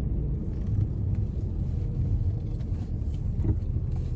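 Steady low rumble of a car heard from inside its cabin, the engine and road noise running evenly.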